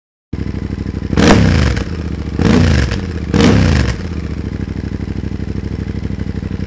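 Yamaha Tenere 700's parallel-twin engine idling through a full aftermarket exhaust (Akrapovic header, Scorpion Red Power slip-on with its baffle installed), heard close to the silencer. The throttle is blipped three times in the first four seconds, each rev rising with a rasp and falling back to a steady idle.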